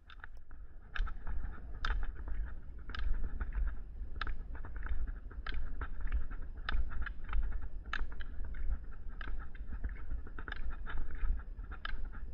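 Rollerski pole tips striking the asphalt in a steady rhythm, a sharp click a little more than once a second with softer clicks between, over a steady low rumble of wheels rolling on pavement.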